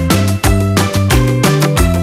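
Upbeat background music with a steady, bouncy beat and a bass line.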